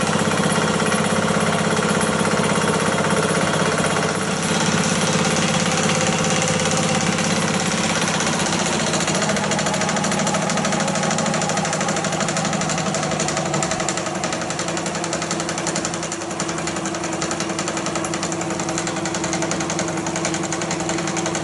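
Antique 35mm film projector mechanism running at full speed with no film in, a steady rapid mechanical clatter. It is turning at only about 16 frames a second, half the speed its red/green colour wheel needs for colour fusion.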